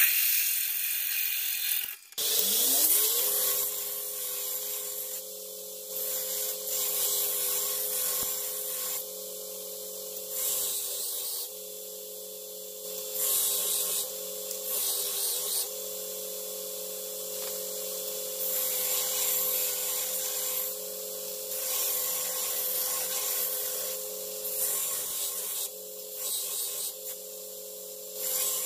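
Drill press boring into steel for the first two seconds. Then a belt grinder's motor winds up to speed and runs with a steady hum, while a flat steel plate is pressed against the abrasive belt in repeated passes, each giving a spell of gritty grinding noise.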